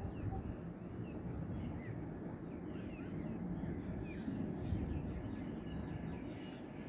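Birds chirping: many short chirps scattered throughout, over a steady low outdoor rumble.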